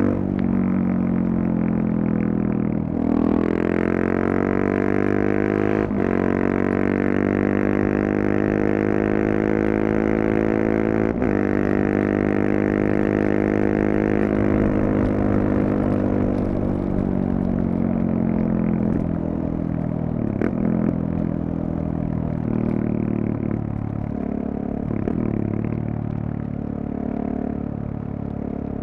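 KTM 690 Duke's single-cylinder engine through a Leovince decat and slip-on exhaust, pulling hard through the gears: the pitch climbs and drops back with each upshift. It then runs lower and less evenly, with a couple of short throttle blips as the bike slows.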